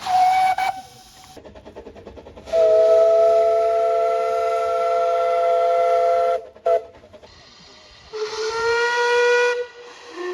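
Train horn sounding a chord in several blasts: a short blast, then a long blast of about four seconds, a brief toot, and another blast of about a second and a half on a lower note.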